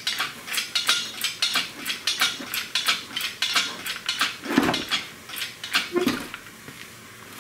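Metal clinking and clanking as a hoisted Kubota three-cylinder diesel engine, hanging on straps, is guided down into a small car's engine bay: a run of sharp clinks, about three a second, with two heavier knocks in the second half.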